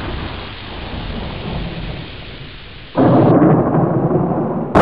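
Thunder rumbling and slowly fading, then about three seconds in an abrupt switch to a loud, steady rush of heavy rain.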